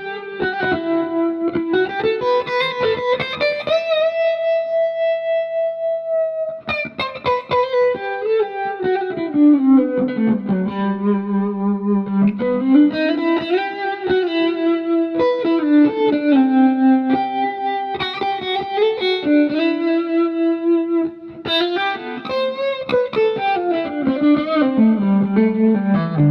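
Electric guitar through a Fulltone Supa Trem tremolo pedal and a Mesa Boogie Mark V amp, playing a single-note melodic line with its volume pulsing quickly and evenly. About four seconds in, one note is held for a couple of seconds before the line resumes.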